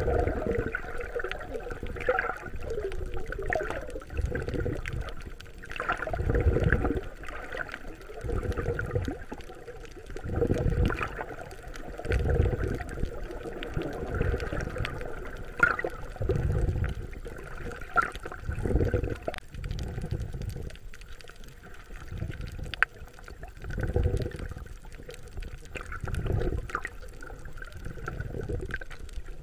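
Muffled underwater water noise while snorkeling: low rushing surges about every two seconds as water moves past with the swimming strokes, with faint scattered clicks.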